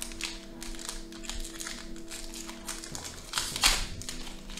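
Foil Pokémon booster pack crinkling in the hands, with a loud ripping crackle about three and a half seconds in as the wrapper is torn open, over background music.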